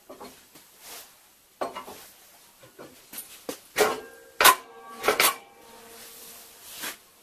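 Steel parts of a small sheet-metal folder being handled: scraping and light knocks, then three loud metallic clanks between about four and five seconds in, the steel ringing on after them.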